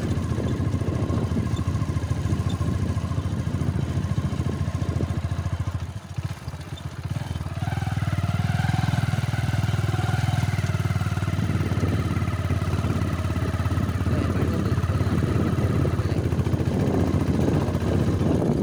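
Motorcycle engine running steadily while riding. It eases off briefly about six seconds in, then picks up again.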